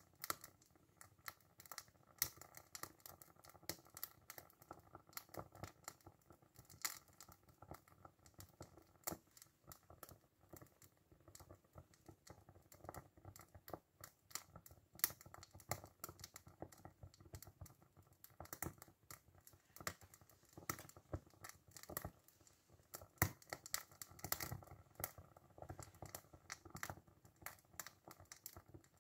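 Toy steam engine's boiler heating over its burner, giving faint, irregular ticking and crackling with no steady rhythm; the engine is not yet running.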